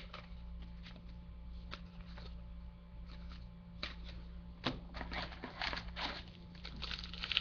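Trading cards being handled and flipped through: soft scattered flicks and rustles of card stock, getting busier about two-thirds of the way in.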